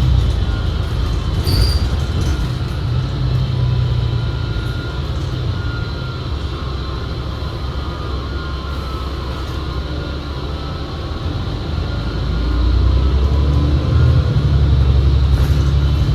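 Cabin sound of a 2019 New Flyer XD60 articulated bus under way: a low drivetrain rumble with steady high whine tones over it, which the rider takes for an odd-sounding transmission that drowns out the engine. The rumble eases off in the middle and grows louder again about twelve seconds in.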